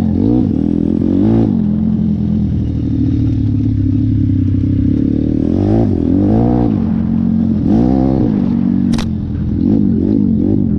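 Dirt bike with a 150 cc YX four-stroke single engine running under way, revved up and back down in several short blips. A sharp click about nine seconds in.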